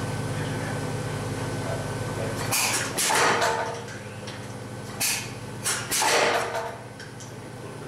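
Power hammer striking a handled top tool laid on a red-hot steel bar, in several short bursts of blows. Under them a steady hum stops suddenly about two and a half seconds in.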